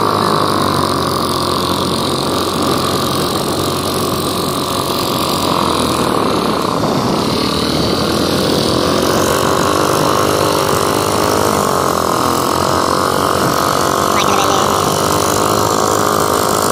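Fishing boat's engine running steadily at a low, even speed, with surf breaking.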